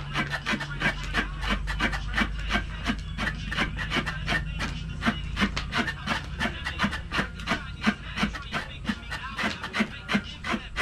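Breadfruit being peeled by scraping its skin off by hand, in quick rasping strokes about four a second.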